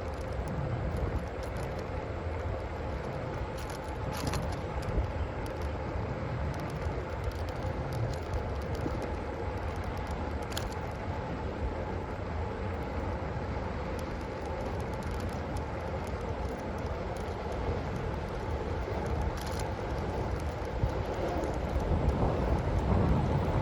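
A vehicle being ridden, running steadily: a constant hum over a low rumble, with wind on the body-mounted microphone, getting louder near the end.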